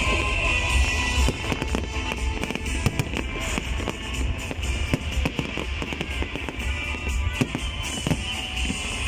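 Aerial firework shells bursting in quick succession, with many sharp bangs through the whole stretch, over music.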